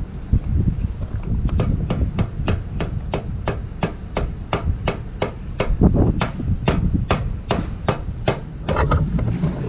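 Harley-Davidson Shovelhead V-twin idling slowly through a replacement silencer: sharp exhaust pops at an even three to four a second over a low rumble.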